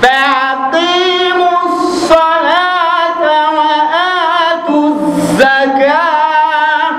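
A man chanting melodically and unaccompanied into a handheld microphone, in long held, wavering notes, with short breaks between phrases.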